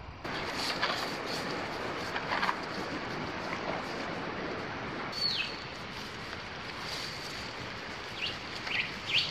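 Footsteps through long grass, with scattered rustles. Short bird chirps come over it: one sliding down in pitch about five seconds in, and several more near the end.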